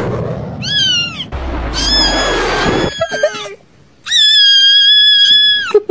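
Meme cat sound clips: a short meow that falls in pitch, then a rushing noise with a low rumble, then a long, steady, high-pitched cat wail from about four seconds in, lasting nearly two seconds.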